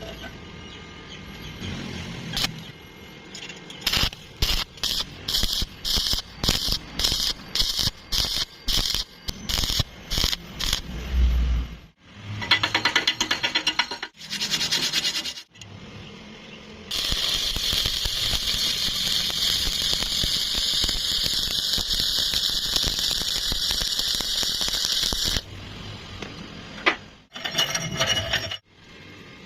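Electric arc welding: a series of short arc strikes in quick succession, then a steady, hissing, crackling arc held for about eight seconds.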